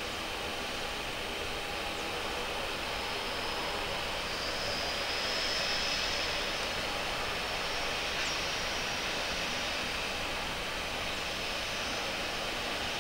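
Boeing 737-800 jet airliner heard from a distance: a steady rush of jet noise with a faint high turbine whine that swells about five seconds in and again near the end.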